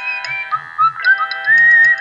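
A Nokia 1200 ringtone playing on a Sony Ericsson Z610i mobile phone. It is a synthesized polyphonic tune: a high lead melody steps upward and then holds a long note over sustained chords, with a bass line of short repeated notes and light ticking percussion.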